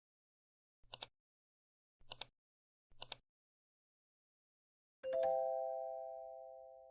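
Three short, sharp clicks about a second apart, then a bright chime of three ringing tones about five seconds in that slowly fades away.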